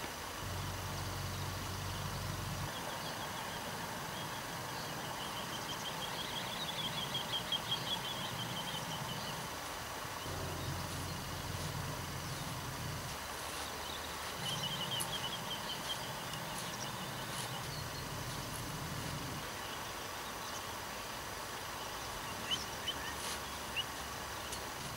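Outdoor ambience with a small bird singing: a rapid trilling phrase about six seconds in and again around fifteen seconds, then a few short sharp chirps near the end. Under it, steady background noise and a low rumble that comes and goes.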